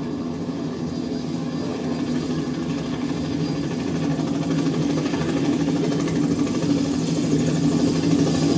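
A recording played through Scansonic MB1 hi-fi loudspeakers: a dense, sustained low drone that swells gradually louder.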